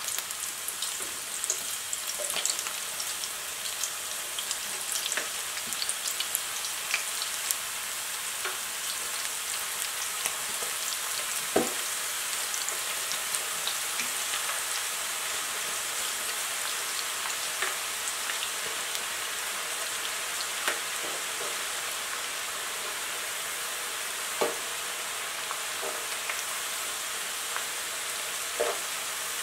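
Fresh, still-moist cassava slices deep-frying in hot oil: a steady sizzle with many small crackles and pops. A few louder knocks stand out, the loudest about twelve seconds in.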